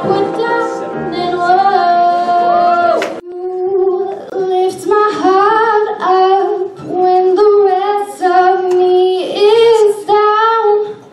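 Young women singing solo into a microphone. About three seconds in, one song cuts off abruptly and another singer takes over, singing alone in short phrases with brief pauses between them.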